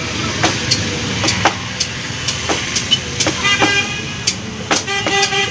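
Hand tool scraping the rubber of a truck inner tube around the puncture to roughen it for a patch, in short quick strokes about two a second. A vehicle horn sounds twice in the second half over a steady traffic rumble.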